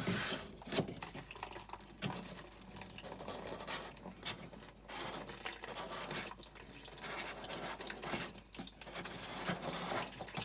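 Water trickling and pouring out of a Whirlpool washing machine that has been opened up, running unevenly into a container that is filling.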